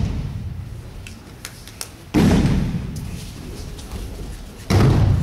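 Judo breakfalls: bodies slamming onto the tatami as players are thrown, two heavy thuds about two seconds and nearly five seconds in, each dying away over about a second in the echoing sports hall.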